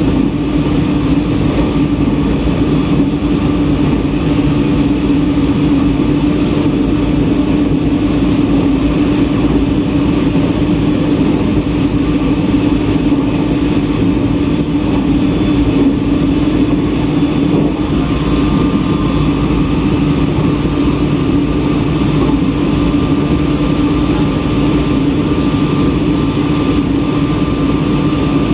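Running noise inside a JR East E127 series electric multiple unit under way: a steady drone of traction motors, gearing and wheels on the rails. A fainter higher tone joins about two-thirds of the way through.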